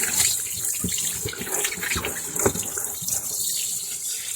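Tap water running steadily while a kitten is washed under it, with a few brief knocks and splashes.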